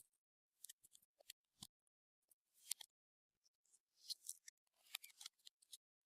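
Faint, irregular sticky clicks and crackles of clear slime being worked and mixed by hand, in short clusters with brief silences between.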